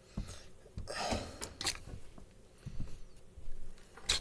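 Irregular short clicks, scrapes and rustles of hands pulling a wire off an air conditioner's run capacitor and handling the capacitor, with a sharper click near the end.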